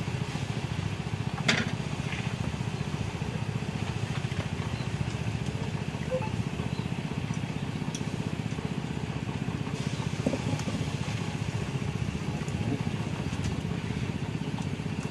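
A small engine running steadily at an even idle, with a single sharp click about one and a half seconds in.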